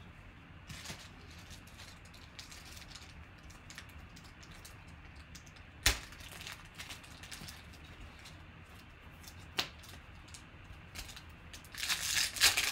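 Quiet handling of trading cards with a couple of sharp taps, then near the end the crisp crackling and tearing of a foil card-pack wrapper being ripped open.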